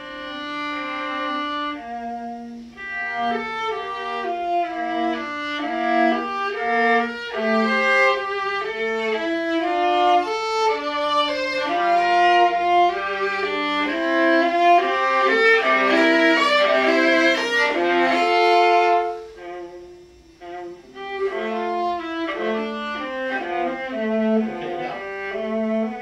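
Solo viola playing a bowed melodic phrase, note after note, growing louder toward the middle. It breaks off for a moment about two-thirds of the way through, then the phrase resumes.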